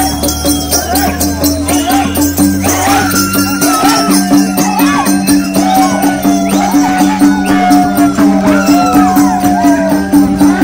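Nepali folk dance music playing loudly, with rattling percussion keeping a steady beat, a wavering melody line and a held low drone.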